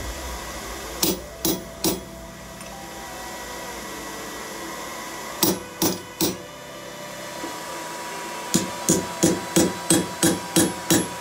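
Hammer striking a punch held in red-hot steel on an anvil, driving an eye hole through the workpiece: two short sets of three blows, then a steady run of blows about three a second near the end.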